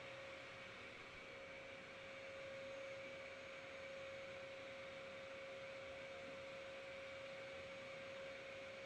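Faint steady hiss with a constant high-pitched electrical hum, unchanging throughout; no activity is heard.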